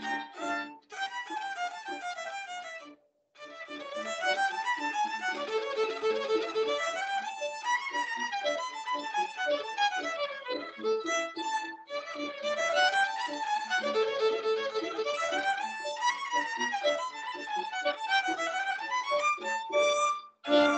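Violin playing quick runs and arpeggios that climb and fall, with a short break about three seconds in. Heard over a video call, with the top end cut off.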